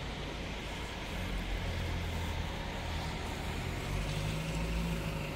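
Low engine rumble of a road vehicle running nearby, growing louder about a second in, over a steady hiss.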